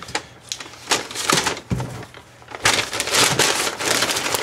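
Brown paper bag rustling and crinkling as it is opened and handled, with a few soft knocks early on and the crinkling loudest from about two and a half seconds in.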